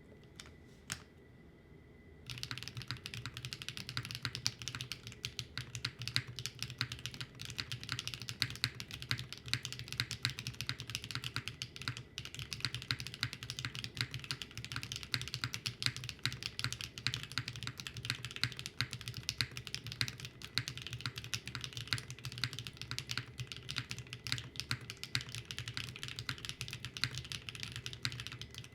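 Fast continuous typing on a mechanical keyboard with Her Heart linear switches (polycarbonate top housing, PA12 bottom housing, LY stem, 48 g bottom-out force), the keys bottoming out in quick, even clacks. It begins with a lone keystroke about a second in, and the steady typing starts about two seconds in.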